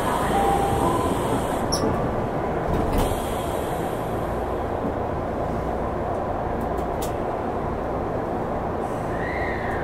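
Steady rumble and hiss of a Tokyo Metro Hanzomon Line subway car, heard inside the car, with a brief whine that rises and falls near the end.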